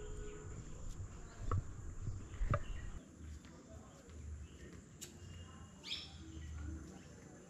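Evening outdoor ambience: a steady high-pitched insect drone with scattered bird chirps, one clearer call about six seconds in. The first three seconds carry the rumble and knocks of the camera being handled, which stop when it is set down.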